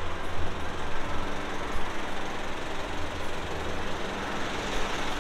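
Steady vehicle engine and traffic noise: a continuous low rumble under an even hiss, with no single event standing out.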